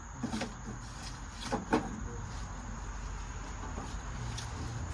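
A few knocks and clicks of equipment being handled, the loudest just under two seconds in, over a steady low hum.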